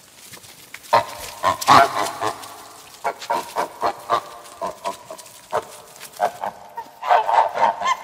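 Domestic geese honking: a quick cluster of calls about a second in, scattered single honks through the middle, and another run of calls near the end.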